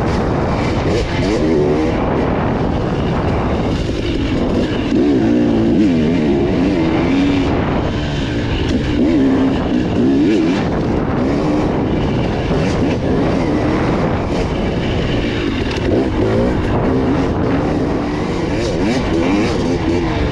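Dirt bike engine running under way, its pitch rising and falling again and again as the throttle is worked on and off.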